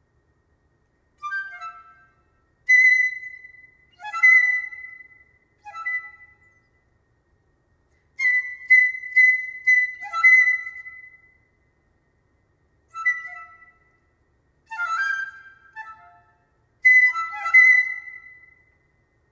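Solo piccolo playing short, separated phrases, each one starting loud and fading into silence. The phrases are mostly high held or repeated notes with quick falling figures, and a run of rapid repeated high notes comes about eight seconds in.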